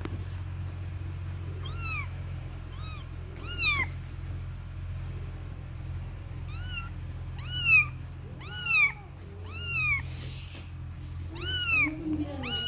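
Young black kitten mewing repeatedly: about nine short, high-pitched mews, each rising and then falling in pitch, starting about two seconds in. A steady low hum runs underneath.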